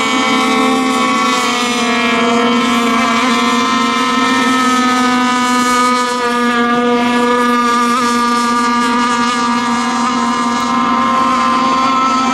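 Radio-controlled racing boats' engines running flat out with a steady, high-pitched buzz that holds much the same pitch throughout.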